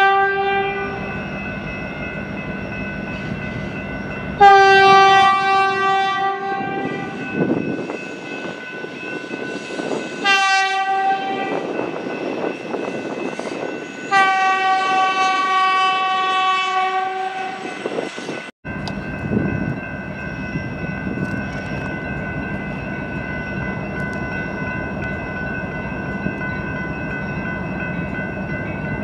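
Stadler FLIRT diesel multiple unit commuter train sounding its horn as it passes: the tail of one blast, then a long blast, a short one and a long one, the grade-crossing pattern, over the steady rumble of the train. About two-thirds in the sound cuts abruptly to a steadier train rumble.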